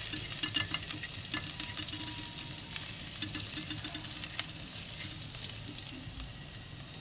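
Coarsely chopped garlic sizzling in hot oil in a metal kadai, stirred with a silicone spatula that scrapes and taps the pan, with scattered crackles through a steady hiss.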